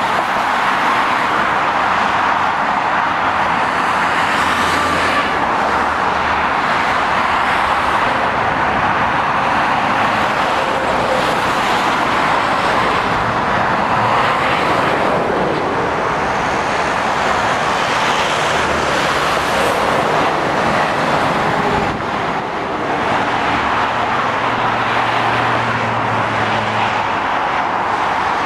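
Continuous road traffic: lorries, vans and cars passing on a fast dual carriageway, giving steady tyre noise and diesel engine drone. A low engine hum stands out twice, about four seconds in and again near the end.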